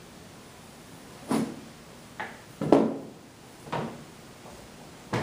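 A series of separate knocks and thumps, about five, the loudest about two and a half seconds in, as a paper chart is taken down off a whiteboard by hand.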